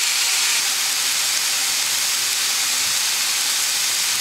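Chicken breast pieces sizzling as they sear in a hot frying pan on high heat: a steady, even hiss.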